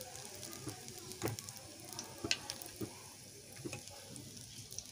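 Hot oil sizzling in a pan around fried stuffed bitter gourds, with a few sharp clicks and knocks of the spoon against the pan and plate as the gourds are lifted out.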